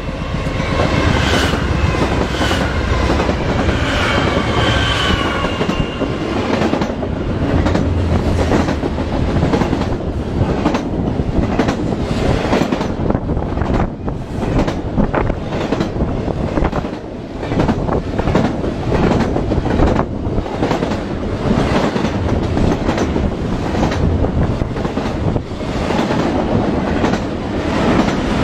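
Diesel freight locomotive sounding its horn as it comes up and passes, the chord dipping slightly in pitch before it stops about six seconds in. Then a long double-stack container train rolls by: a steady heavy rumble of steel wheels on rails with rapid repeated clicks.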